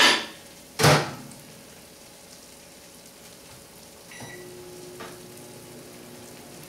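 Two loud knocks, then a short beep about four seconds in and a microwave oven starting up with a steady low hum, heating food to melt cheese.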